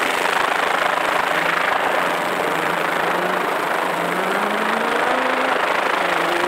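Ford Escort rally car's Cosworth BDA four-cylinder engine at full throttle, its pitch climbing, dropping back and climbing again twice as it changes up through the gears, over a steady rushing noise.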